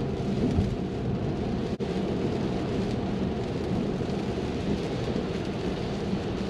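Steady road noise inside a Tesla's cabin while driving in the rain: tyres hissing on the wet road, mixed with rain on the glass roof and windshield.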